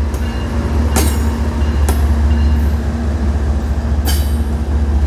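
CN freight train's diesel locomotives passing close by, a loud steady low engine rumble, with sharp wheel clacks over the rail joints three times, about one, two and four seconds in.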